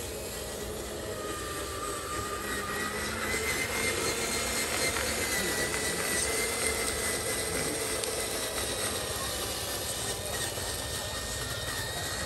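Electric motor and gearbox of a radio-controlled model dump truck whining steadily as it crawls through mud and shallow water, the pitch drifting slightly with its speed.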